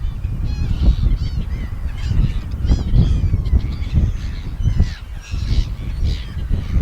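Seagulls calling, many short, harsh calls overlapping in quick succession, over a loud, steady low rumble.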